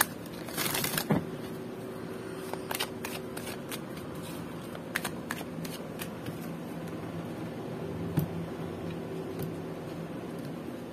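An oracle card deck being shuffled by hand: a brief riffling rustle about half a second in, then scattered soft clicks and slides of cards over a steady low hum.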